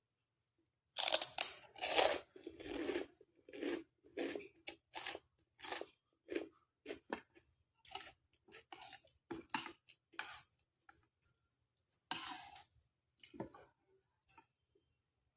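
A person chewing mouthfuls of bakso urat, Indonesian meatballs made with beef tendon, in a run of irregular chewing sounds at about two a second, loudest about a second in.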